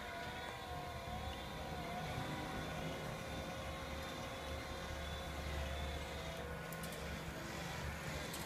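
Steady hum of small electric motors with a faint, slowly wavering whine above it.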